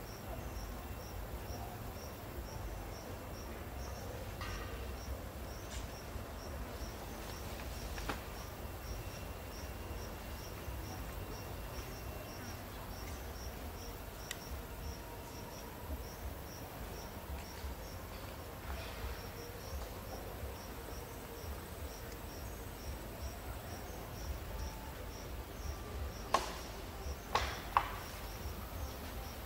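A cricket-like insect chirping in a steady, high-pitched pulse, about three pulses a second, over low background noise. Near the end, a few sharp clicks stand out.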